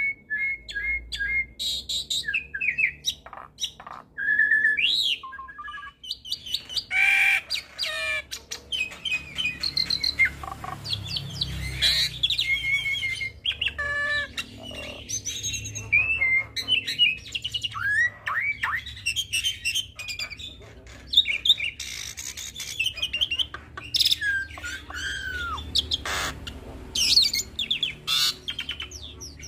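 Hybrid starling (Nias hill myna crossed with Asian pied starling) singing a continuous, varied song of short whistles, rising and falling glides, clicks and harsh chatter, full of mimicked phrases.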